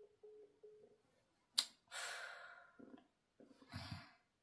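Three faint short beeps, then a sharp click and a long, loud sigh from a girl, with a shorter breath near the end.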